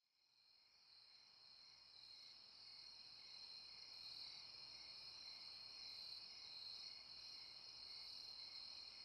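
Faint chorus of crickets trilling steadily, fading in from silence at the start.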